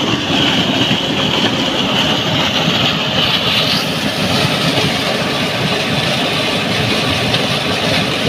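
A water pump's discharge pipe pouring a heavy stream into a river. The water is a steady loud rushing and splashing, with the pump machinery droning underneath.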